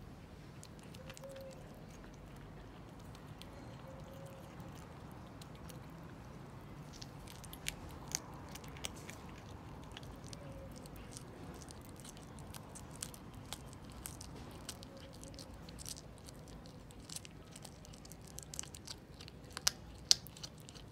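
Kitten chewing and gnawing a piece of meat, with sharp wet clicks and crunches from its teeth. The clicks grow more frequent about a third of the way in, and the loudest come near the end.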